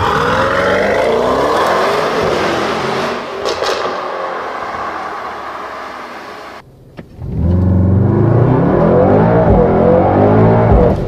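Mercedes-AMG GT63 S 4-Door Coupé's twin-turbo V8 accelerating hard in Sport Plus: the exhaust rises in pitch and fades as the car pulls away, with a couple of sharp cracks about three and a half seconds in. After a brief drop around seven seconds in, the engine revs up again, louder and deeper, heard from inside the cabin.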